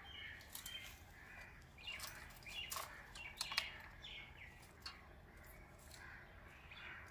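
Faint bird calls with short chirps, over light clicks and snaps of dry twigs being handled and pushed into a wood-burning chulha.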